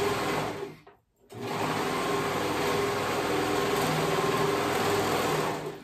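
Serger (overlocker) running at a steady speed as it stitches a seam, stopping for a moment about a second in, then running again until just before the end.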